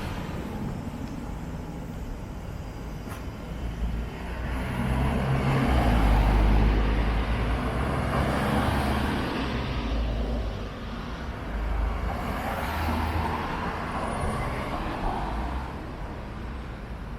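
Road traffic: motor vehicles passing by, with a deep engine rumble that swells about four seconds in, peaks over the next few seconds, and comes back briefly later on.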